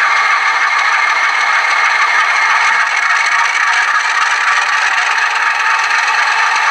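Atlas model GE U36C locomotive running, making a steady rattling, scraping mechanical noise.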